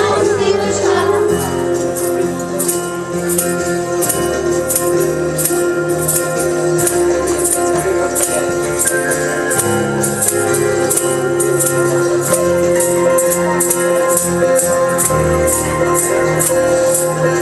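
Instrumental music: sustained keyboard chords over a stepping bass line, with a jingling percussion stroke on every beat, about two or three a second.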